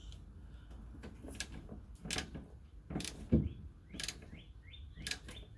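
Scattered sharp metal clicks and knocks, about six in all, from a hand tool tightening the fuel filler neck's mounting bolts, with birds chirping in the background in the second half.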